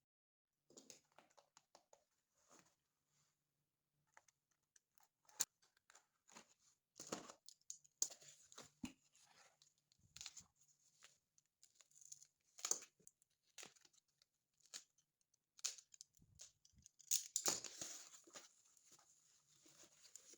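Book packaging being torn open and crinkled by hand: scattered rips and rustles, busiest near the end.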